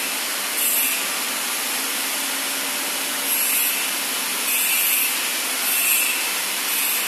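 Steady machinery noise of a packing-machine workshop, a low hum under a constant hiss, with short sharper bursts of hiss every second or so.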